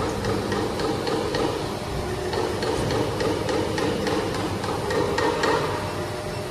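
HJF240t injection molding machine running: a steady machine hum with many light, irregular clicks on top.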